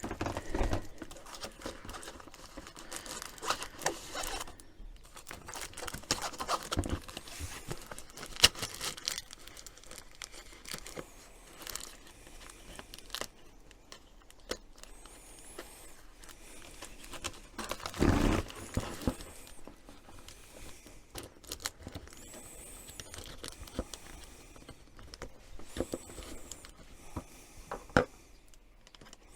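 A flexible extraction hose crinkling and rustling as it is handled and worked onto a 3D-printed hose coupler, with scattered knocks and clicks; the busiest bursts come about three seconds in, about eight seconds in, and about eighteen seconds in.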